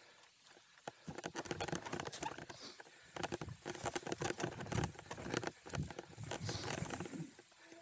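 Chromag hardtail mountain bike descending rocky, rooty singletrack: a dense, irregular run of small clicks, knocks and rattles from tyres and frame over rock and roots, starting about a second in.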